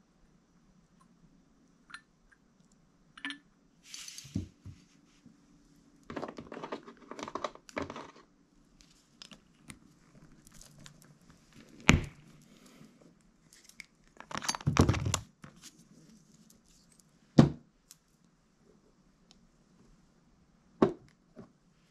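Glass bottles and their caps being handled on a desk while fragrance oil is decanted: scattered sharp knocks and clinks as bottles are set down, with rattling and rustling handling noise in between.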